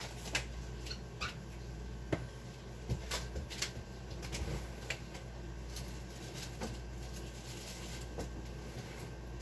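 Scattered light clicks and knocks of kitchen items being handled off-camera while the mayonnaise and cheese are fetched, over a steady low hum.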